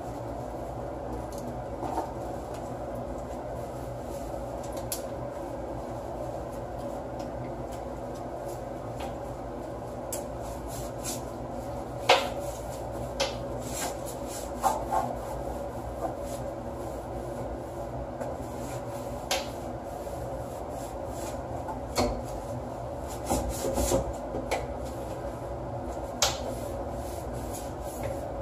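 A cloth rubbing over a hard black piece of furniture as gloved hands wipe it clean, over a steady background hum. Occasional sharp knocks as the piece is handled and turned, the loudest near the middle and a few more close together later on.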